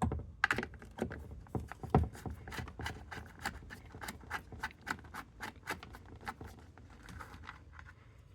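A run of small sharp clicks, several a second, with light scraping, as a hex tool turns out the small Allen screws holding a chainsaw's plastic cover. A few louder knocks come at the start, about half a second in, and about two seconds in.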